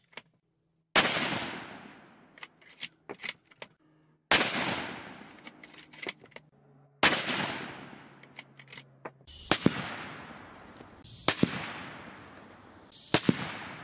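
Three shots from a Winchester Model 70 Featherweight Compact bolt-action rifle in .243 Winchester, about three seconds apart, each a sharp report with a long rolling echo. Light clicks of the bolt being worked come between the shots. In the second half there are several quieter sharp cracks.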